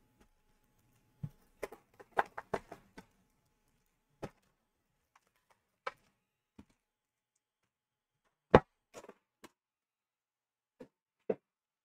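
Scattered light clicks and taps of sealed foil trading-card packs and their metal tin being handled as the packs are lifted out and set down, several close together in the first three seconds and a louder knock about eight and a half seconds in.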